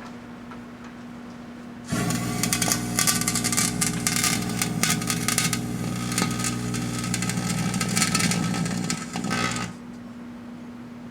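Flashing fountain firework going off inside a running microwave oven: a loud, crackling hissing spray that starts about two seconds in and cuts off suddenly about eight seconds later, over the microwave's steady hum.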